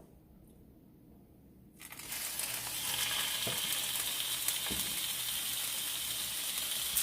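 Raw chicken breasts laid into hot olive oil in a pan and sizzling, with a few light clicks of the pan. The sizzle starts suddenly about two seconds in and holds steady.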